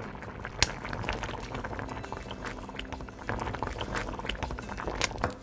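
Thick cheonggukjang (fermented soybean) stew with tofu boiling in a stainless steel pot, bubbling with many small pops and a sharper pop about half a second in. In the second half a spoon stirs through the stew.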